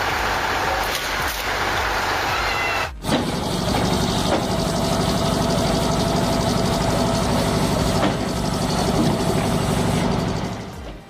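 Engine-driven machinery running steadily, broken by a short silent gap just before three seconds in, where the footage cuts.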